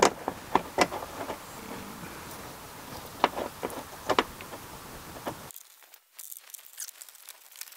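Scattered light clicks and small rattles as screws are started by hand into a Ram Promaster van's plastic headliner and the panel is handled. A steady background hiss cuts off abruptly about five and a half seconds in, leaving only fainter clicks.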